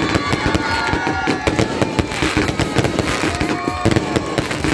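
A 168-shot Space Ranger fireworks cake by LF Fireworks firing in rapid succession: a dense, unbroken string of bangs and crackles, with thin whistling tones in the first second or so.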